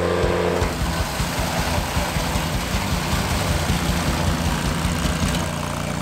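Ventrac compact tractor's engine running under load as its brush-mower deck cuts through undergrowth, a dense, uneven low rumble. Under a second in, a steadier hum gives way to the rougher churn.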